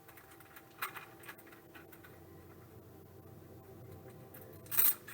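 Trading cards and their plastic holders being handled: a soft click about a second in and a louder clack near the end, over faint room hum.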